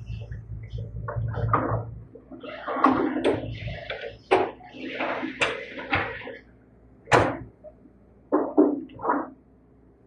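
A run of irregular knocks and bangs, several of them sharp, with a low rumble under the first couple of seconds.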